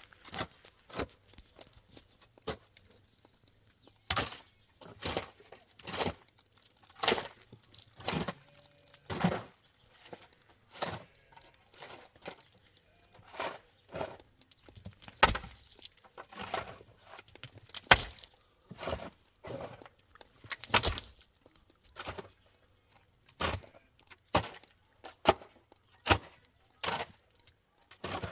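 Irregular sharp knocks and taps, about one or two a second, with short quiet gaps between them.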